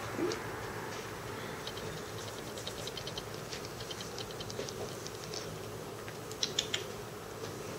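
A kitten's claws ticking and catching on denim jeans as it steps about on a lap: light, irregular clicks, with a quick cluster of louder ones near the end, over a steady low room hum.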